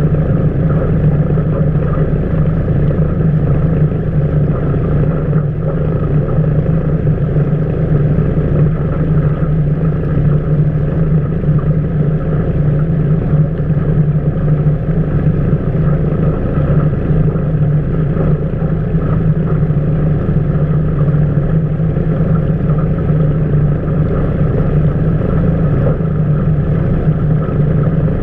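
Outboard motor running steadily at cruising speed, heard from aboard a small aluminum fishing boat under way, with water rushing and splashing along the hull.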